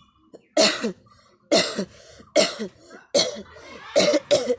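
A person coughing hard on purpose, six loud coughs about a second apart, the last two close together.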